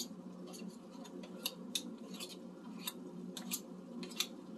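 Metal spoons clicking and scraping against each other and a metal mixing bowl as shrimp quenelle paste is shaped between two spoons: light, irregular clicks over a steady low hum.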